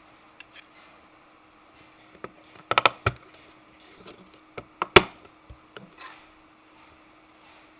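3D-printed plastic parts handled and clicked together as a printed rail is fitted onto a miniature table saw. There is a quick cluster of clicks about three seconds in and one sharp click about five seconds in, with lighter taps around them.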